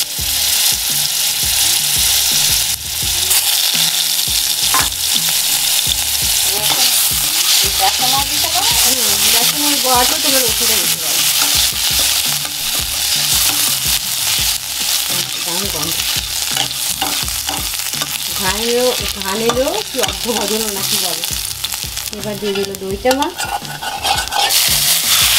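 Mustard oil sizzling in a kadai with a tempering of mustard seeds, dried red chillies and garlic, while a steel spatula stirs and scrapes against the pan in short clicks.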